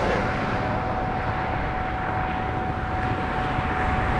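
Steady traffic and engine noise from a highway, with a constant thin whine running through it.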